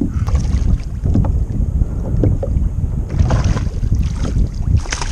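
Wind buffeting the microphone over water moving around a kayak's hull, with a few short clicks scattered through.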